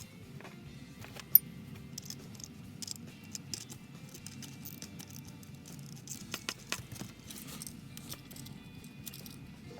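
Scattered light metallic clicks and rattles of small hardware being handled (bolt, nuts, washer, Rivnut), with one sharper click about a second in and a busier patch of ticks past the middle, over a low steady hum.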